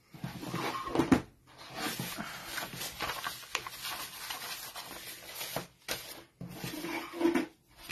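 Sheets of printed paper and card rustling and sliding as they are handled and shuffled by hand, with two brief pauses.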